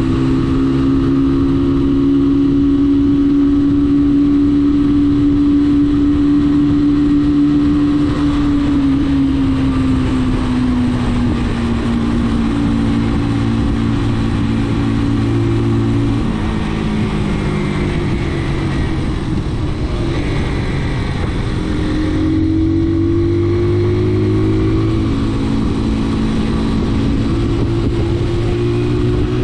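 Brixton BX5 motorcycle engine running under way, over a steady rush of wind. The engine note holds steady, sinks gradually from about a third of the way in as the bike eases off, then climbs again about two-thirds through as it picks up speed.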